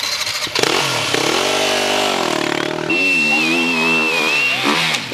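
Enduro motorcycle engine revving hard, its pitch rising and falling under throttle. A thin, high, steady whistle-like tone sounds over it for a second or two in the middle.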